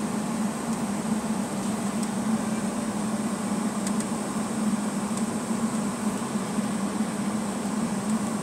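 Steady cabin noise inside a Boeing 757-232 taxiing: a low, even drone from its engines at idle thrust mixed with the hiss of the cabin air, plus a faint, thin high whine.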